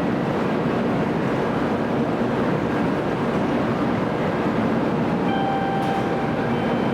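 Tokaido Shinkansen train at the station platform: a steady, even rumble and hiss with no rise or fall, and a few faint steady tones coming in about five seconds in.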